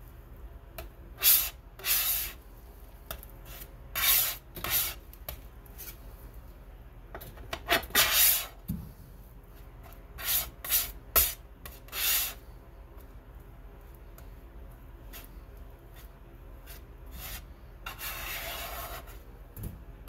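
Steel palette knife scraping and spreading thick oil paint across the mulling plate: about ten short, sharp scrapes in quick pairs and groups, then one longer, softer scrape near the end.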